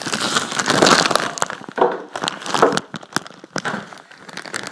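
Packaging crinkling and rustling with scattered clicks and knocks as a PC case is unpacked and handled, loudest about a second in.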